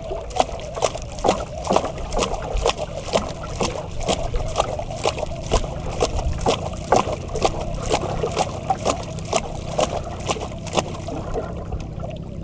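Water sloshing and slapping against the hull of a small wooden outrigger boat (banka), with a regular run of sharp knocks about twice a second.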